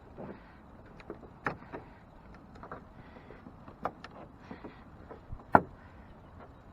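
Scattered light clicks and knocks from parts being handled, the loudest a sharp knock about five and a half seconds in.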